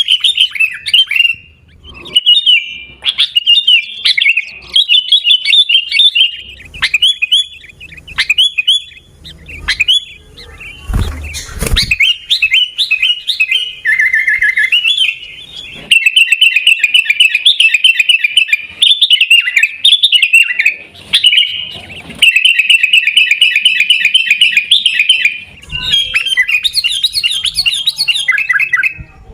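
Sooty-headed bulbul (kutilang) calling and chattering, fast runs of high chirping notes with short pauses between them. A brief rustle or knock comes about eleven seconds in.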